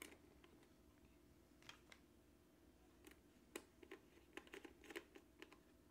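Faint scattered clicks and taps of a digital multimeter's plastic case being handled as its battery is fitted inside, busiest about three and a half to five seconds in.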